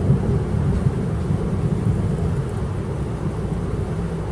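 Thunder rumbling, a deep roll that is loudest at the start and eases slightly over the following seconds.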